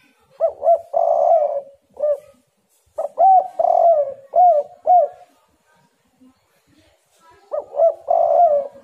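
Spotted dove (tekukur) cooing its song phrase three times. Each phrase is a few quick short notes followed by a longer coo, with a pause of about two seconds before the third phrase, which begins near the end.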